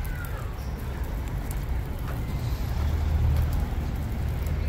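Outdoor city street noise: a steady low rumble that swells about three seconds in, with a faint hiss above it.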